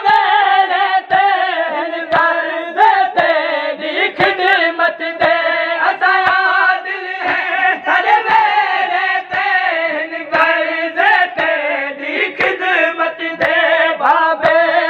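A group of men chanting a noha, a Shia lament, with rhythmic open-hand chest-beating (matam) thudding about once a second under the voices.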